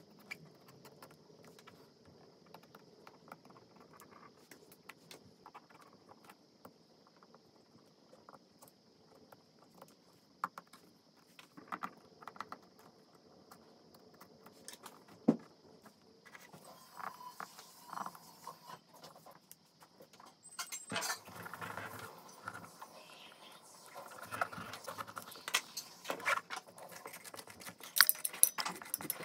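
A small knife cutting and scraping into pumpkin rind, with faint scattered clicks and scratches. About two-thirds in it turns to louder, denser scraping and rustling with sharp clicks and knocks, loudest near the end, as the pumpkin is handled over a metal bowl.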